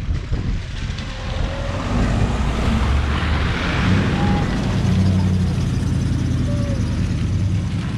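Triumph Stag convertible's engine running steadily at low revs as the car drives out of a shallow ford and past, tyres hissing and splashing through the water, loudest about three to four seconds in.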